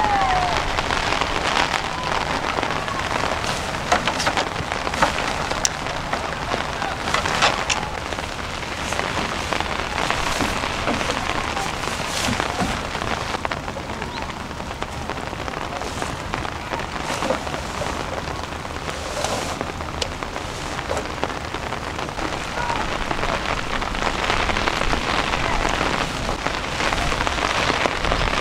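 Heavy rain falling steadily on a wooden deck and a tent's fabric, with now and then a short crackle or knock as the tent fly and poles are handled.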